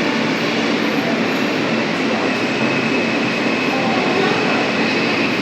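New York City Subway J train running through the tunnel: a steady, loud rumble of wheels and car noise, with a faint high whine from about two seconds in that rises slightly in pitch.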